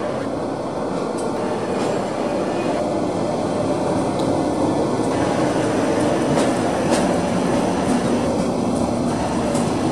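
Couchette and double-deck sleeping cars of a departing City Night Line train rolling past, a steady rumble that grows a little louder as the train gathers speed. Sharp wheel clicks come more often in the second half.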